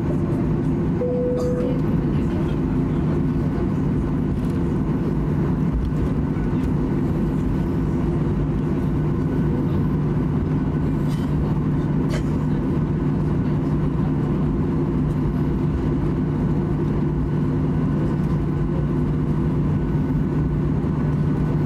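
Cabin noise inside a Boeing 737-800 while it taxis: its CFM56-7B turbofan engines make a steady drone at taxi power. A brief tone sounds about a second in.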